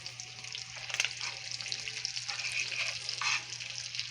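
Food frying in a pan, a steady crackling sizzle with a sharp click about a second in, over a constant low hum.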